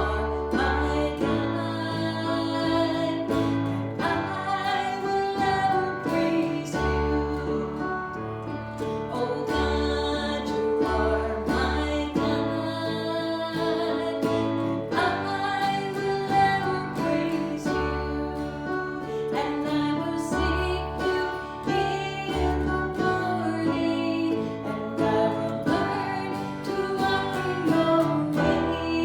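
A song sung to guitar accompaniment, with a steady bass line underneath.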